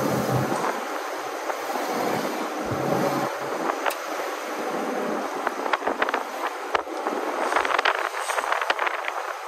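Car on the move: steady road and wind noise, with a run of irregular sharp clicks and crackles in the second half.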